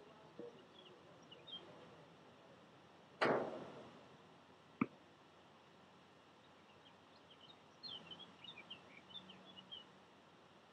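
Two tennis ball strikes about a second and a half apart: the first loud with a ringing tail, the second a sharp crack. Faint high chirping comes in short flurries near the end.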